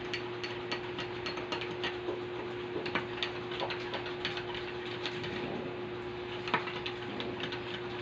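Metal spoon clinking against the inside of a glass mug as coffee is stirred: quick, irregular light clinks over a steady low hum.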